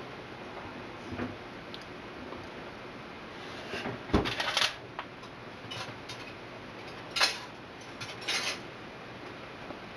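A metal utensil clinking and scraping against a foil-lined baking pan as it is worked into baked salmon fillets. There is a cluster of scrapes about four seconds in, then single scrapes about three and four seconds later.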